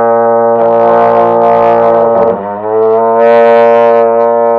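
Two trombones holding long, steady low notes; about halfway through the sound dips and one player stops, and the other trombone holds its low note to the end.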